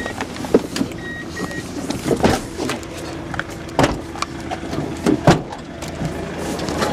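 Knocks and clunks of people climbing out of a vehicle, with a few short high beeps near the start.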